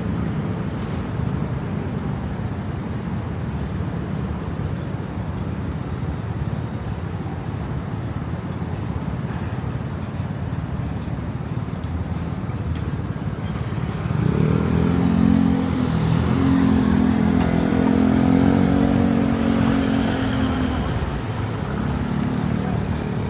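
Street traffic rumbling steadily, then a louder vehicle engine hum passing close about halfway through, fading a few seconds later and returning briefly near the end.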